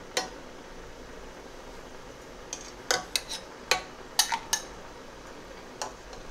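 A metal spoon clinks against a steel pot and a glass of water as starch foam is skimmed off boiling lentils. There is one clink just after the start, a quick cluster of clinks about three to four and a half seconds in, and another near the end, over a steady background hiss.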